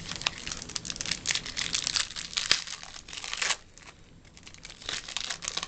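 Foil trading-card pack wrapper crinkling and tearing as it is opened. Dense crackling for about three and a half seconds, then a few softer crinkles near the end.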